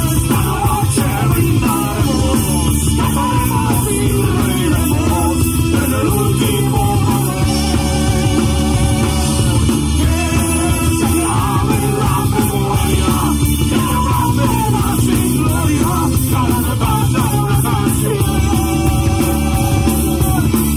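Rock band playing live and amplified, with electric guitars, bass and drums, and a voice singing over them.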